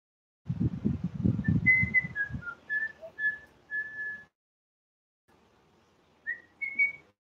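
A woman whistling a short tune through pursed lips: a string of held notes, a pause, then two rising notes near the end. A low rumbling noise runs under the first two seconds.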